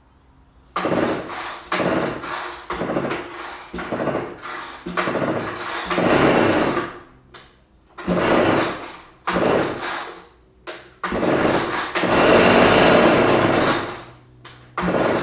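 Echo PB-2620 leaf blower's small two-stroke engine being pull-started from cold. It gives short bursts about once a second, sputtering and dying between them, then fires for longer stretches and runs for about three seconds near the end before dropping off.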